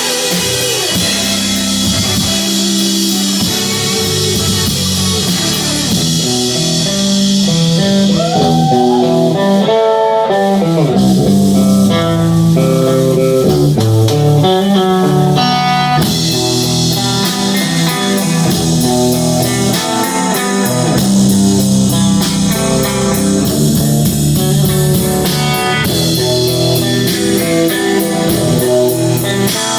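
Live rock band playing an instrumental passage on electric guitar, bass and drum kit. About a third of the way in, a guitar line slides and bends in pitch while the cymbals drop back, then the full band comes back in.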